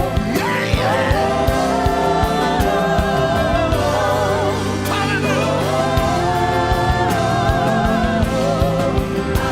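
Gospel worship music: sung voices with a choir over a full band, with keyboard chords and a steady drumbeat.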